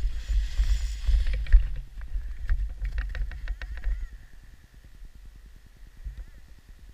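Wind buffeting the microphone with a heavy rumble, easing off about four seconds in, over clicks and crunches of boots and harness gear on packed snow.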